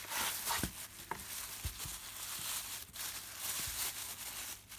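Rustling and crinkling of a soldering iron's packaging as it is torn open and unwrapped, with a few soft knocks as it is handled.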